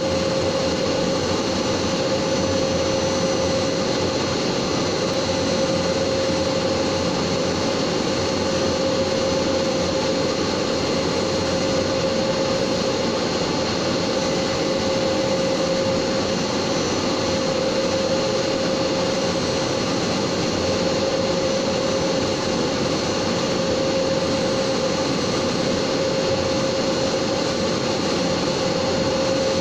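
Laser cutting machine running steadily while cutting veneer-faced 1 mm MDF: an even whirring noise with a constant hum tone and no breaks or changes.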